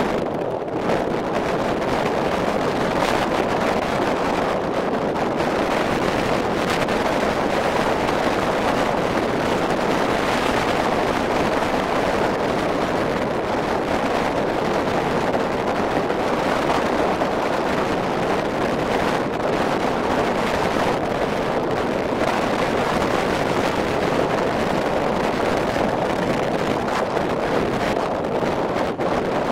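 Steady wind buffeting the microphone on the open deck of a car ferry under way, mixed with the rush of sea water along the hull.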